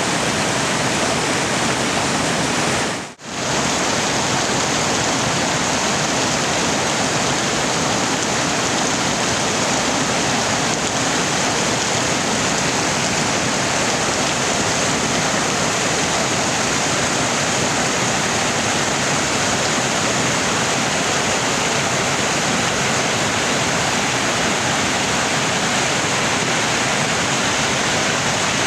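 Steady rushing water, an even dense wash of noise, with a brief dropout about three seconds in.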